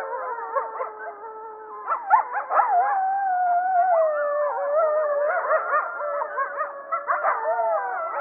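Alaskan huskies howling together: several long, wavering howls overlap in a continuous chorus.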